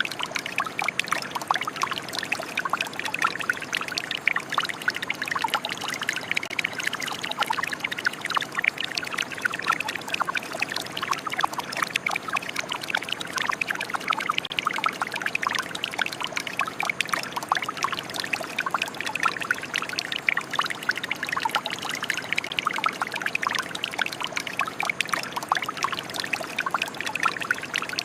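Shower running: water spraying and splattering in a steady, dense patter of droplets that does not let up.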